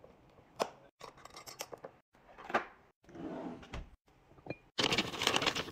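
Small ASMR handling sounds: sharp clicks and taps as a plastic shaker lid is pressed onto a glass spice jar, a few knocks and scrapes of containers, then a dense rattling clatter near the end.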